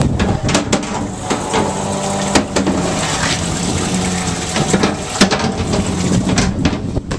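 Water sloshing and splashing in a boat's livewell as bass are handled out of it by hand, with sharp knocks on the aluminum boat and a low hum that comes and goes.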